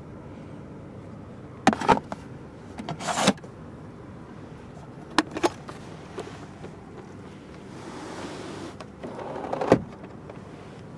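Clicks and knocks of a car's plastic interior trim being handled: storage-bin lids and latches opening and shutting. There are a couple of sharp clicks about two seconds in, more around three and five seconds, a short sliding sound, then a clatter ending in a sharp click near the end, over a steady low hum.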